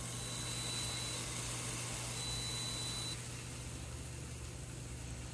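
Steady hiss from the hot Gourmia smokeless indoor grill as the cooked steak is lifted off the grill plate, dropping away about three seconds in. A low steady hum runs underneath, and a faint high-pitched tone sounds twice.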